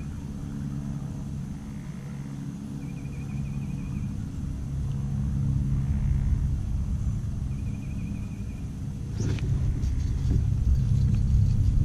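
Low, steady rumble of wind buffeting the action camera's microphone. About nine seconds in, a short sharp swish as the fishing rod is swung up.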